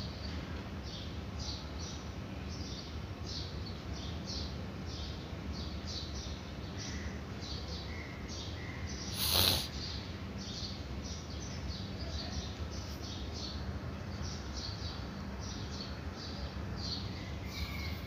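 Felt-tip marker squeaking and scratching across a white board in short strokes, about two a second, over a steady low hum. One louder, brief noise about halfway through.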